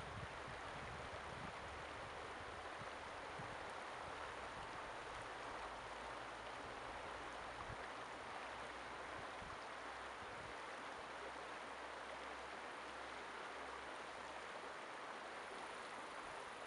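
Shallow river running over rocks, a steady rushing of water.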